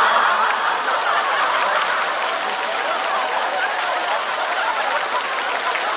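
Studio audience applauding, with some laughter among the clapping.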